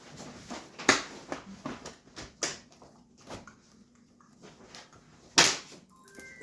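Scattered clicks and knocks of dirt-bike parts and tools being handled during reassembly, the loudest a sharp knock about five and a half seconds in. No engine running.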